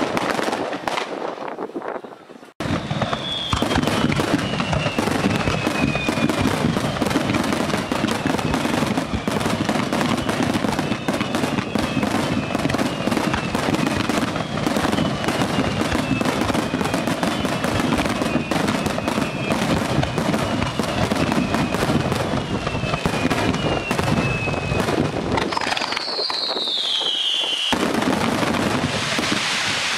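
A fireworks display in full barrage: dense crackling and popping from many shells and crackle stars, with a series of falling whistles over it. The sound breaks off briefly near the start and again near the end.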